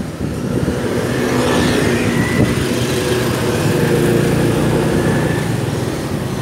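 Motorcycle engine running steadily under way, heard from the pillion seat, with road noise.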